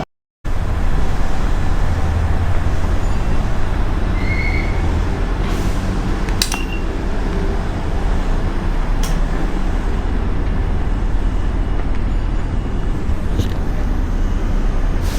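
Steady low rumble of urban traffic noise, with a few faint clicks and no crossing bell or passing train.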